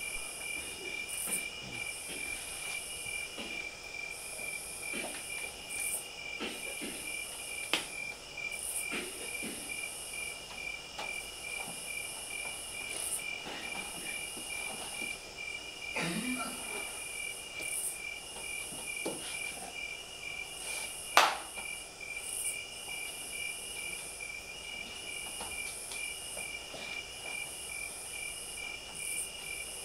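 Crickets chirping: a steady, rapidly pulsing high trill, with a still higher insect buzz that swells every few seconds. A few scattered knocks cut through, the loudest about 21 seconds in.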